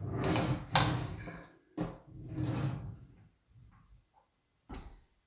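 Handling noise close to the microphone: a few short rustles and knocks, the loudest a sharp knock about a second in, and a fainter click near the end.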